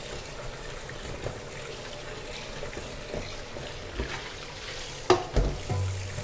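Tap water running into a stainless steel sink while a wok is scrubbed with a sponge under the stream. A couple of sharp knocks stand out a little after five seconds in.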